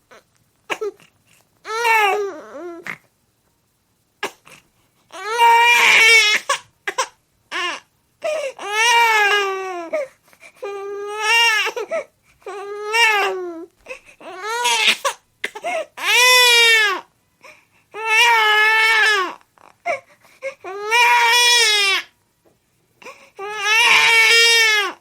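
A baby crying: a string of loud wails, each about one to two seconds long, broken by short catching breaths.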